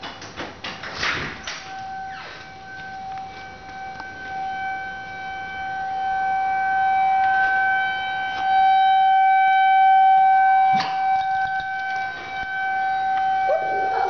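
Tornado warning siren sounding a steady single-pitch wail that swells louder and softens as it sweeps, heard from indoors, with a few knocks at the start. Near the end a Shih Tzu starts howling along with the siren, its voice sliding down in pitch.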